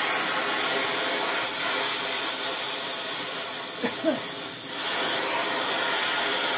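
Gas welding torch (Donmet 132A micro) burning with a steady hiss. About four seconds in there is a brief pitched sound, like a short voice.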